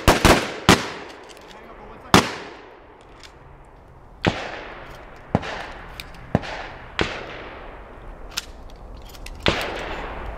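Shotguns firing from several shooters on a firing line: about ten irregularly spaced shots, three in quick succession at the start and the rest scattered, each ringing out briefly.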